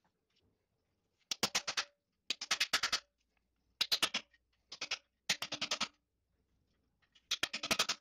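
Hammer striking a chisel-like tool driven into the grinder-cut seam of a steel scroll compressor shell. The sound comes as six short flurries of rapid taps, each about half a second long, with pauses between them.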